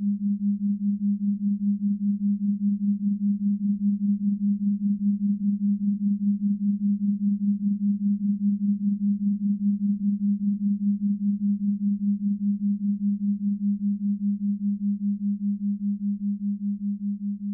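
Steady low pure tone near 200 Hz, swelling and fading about three times a second: a 3 Hz delta binaural beat. It grows slightly quieter near the end.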